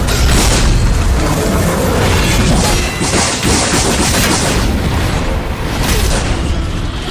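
Cinematic sci-fi battle sound effects: heavy booms and crashing impacts of a mech fight, loud and dense, with dramatic music underneath and a brief hissing rush about three seconds in.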